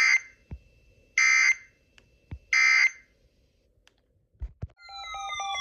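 Three short bursts of EAS digital data tones, about 1.3 s apart: the SAME end-of-message signal that closes a broadcast severe thunderstorm warning. Near the end a louder alert tone starts, several descending sliding tones over rapid beeping.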